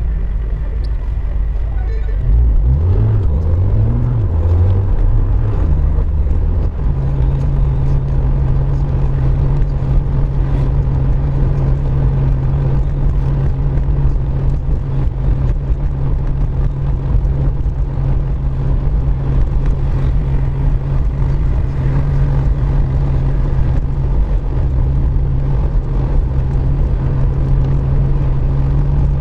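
Car engine and tyres heard from inside the cabin: the car pulls away from a stop, the engine pitch climbing in steps about two to six seconds in, then settles into a steady cruising drone with tyre noise on a wet road.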